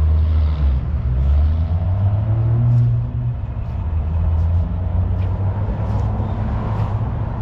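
A car engine running with a deep, low rumble, its pitch rising a little and then dropping back about three seconds in.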